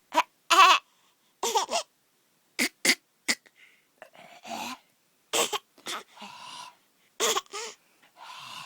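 Baby making a string of short, high-pitched vocal sounds mixed with breathy huffs, coming in quick separate bursts.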